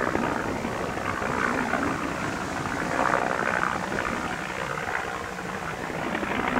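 Bell 212HP helicopter in low flight: the rapid, steady chop of its two-bladed main rotor over turbine noise, swelling slightly about halfway through and easing near the end.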